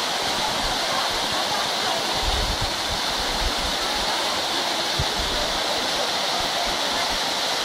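Waterfall pouring down a rock face: steady rushing water, with a few brief low thumps about two and a half and five seconds in.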